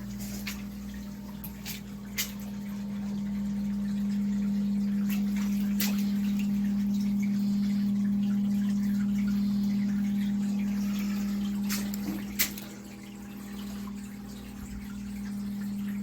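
A steady electric motor hum with water dripping, and a few sharp clicks or drops scattered through.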